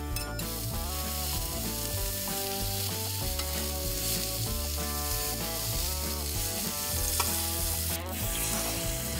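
Food sizzling on a cast-iron griddle plate in a gas grill, onions and burger patties frying while a spatula scrapes and turns them. Background music with a repeating bass line plays underneath.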